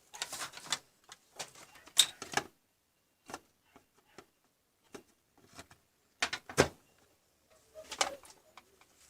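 Irregular clicks and knocks, a few sharp ones standing out, with quiet gaps between them.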